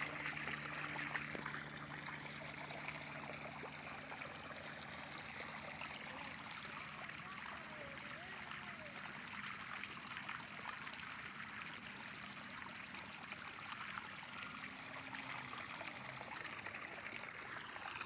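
Irrigation water flowing steadily through an earthen field channel, an even running, trickling sound.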